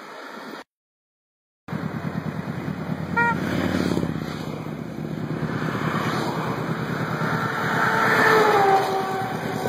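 After about a second of silence, a steady pulsing engine rumble, with a short horn toot from a passing Harley-Davidson motorcycle about three seconds in. Later a passing vehicle's sound falls in pitch as it goes by.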